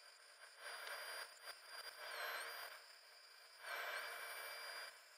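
Rotary tool with a grinding-stone bit running at high speed with a thin whine, grinding down the glass nipple on the back of a gas-filled numeric display in three short bouts. The whine dips in pitch twice as the bit is pressed onto the glass.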